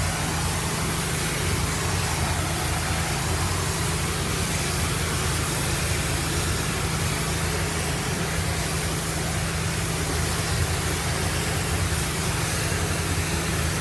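Pressure washer engine running steadily with a low hum, under the constant hiss of high-pressure water spraying from a wand as concrete is rinsed down.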